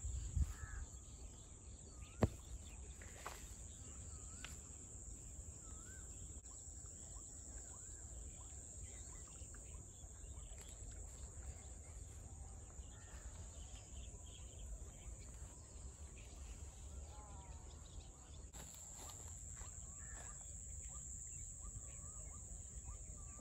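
Insects trilling in a steady high-pitched drone at the lakeside, with a few short, faint bird calls over it. A single sharp click comes about two seconds in.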